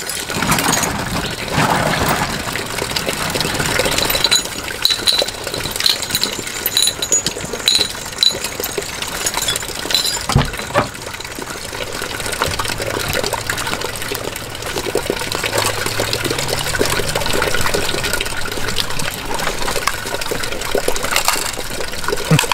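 Water running and splashing, with scattered clinks of stones and metal.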